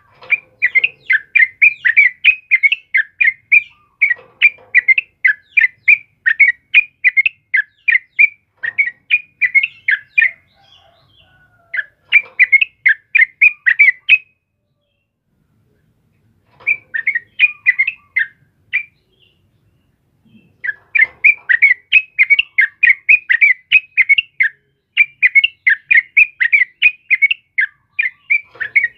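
Yellow-vented bulbul (trucukan) singing in dense, rapid runs of short chirpy notes, about three a second. The runs break off twice for a second or two around the middle.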